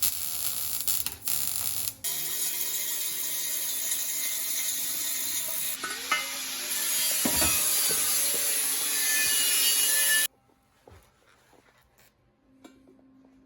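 Welding arc crackling steadily as a bead is laid on steel plate, with a couple of brief pauses in the first two seconds, then stopping abruptly about ten seconds in.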